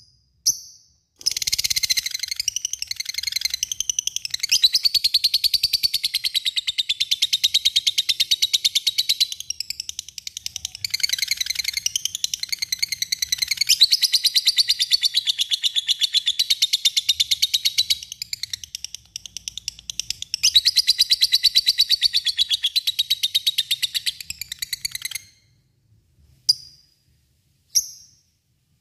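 Lovebird in a long 'ngekek' chatter: a very fast, high-pitched trill of rapid chirps held for over twenty seconds with only brief dips, then a few single sharp chirps near the end.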